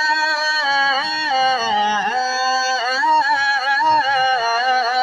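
A man's voice singing an Urdu devotional verse (naat), drawing out a long melismatic phrase. The held notes waver and slide, with quick ornamental turns.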